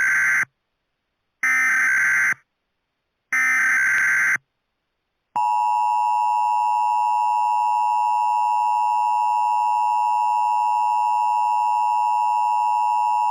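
Emergency Alert System header: three bursts of SAME digital data tones, about a second apart, followed by the steady two-tone EAS attention signal, held for about eight seconds before cutting off.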